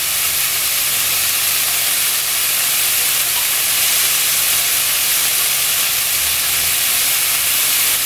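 Beef striploin pieces sizzling on an electric grill pan: a steady, even hiss.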